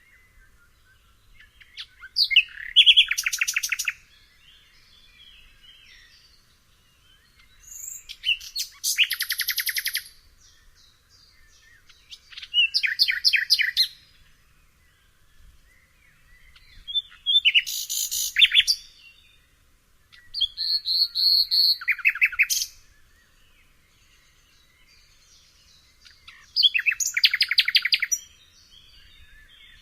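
Nightingale singing: six short phrases of rapid repeated notes, each a second or two long, separated by pauses of a few seconds.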